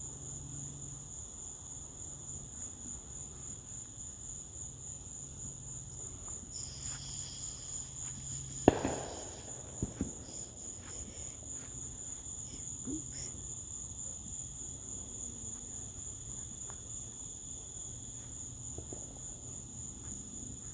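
Steady high-pitched chorus of night insects. About nine seconds in comes a single sharp bang that dies away in a short rumble, a firework going off, followed about a second later by two smaller pops.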